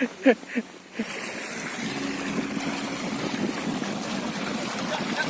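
Steady rushing of flowing stream water, starting suddenly about a second in.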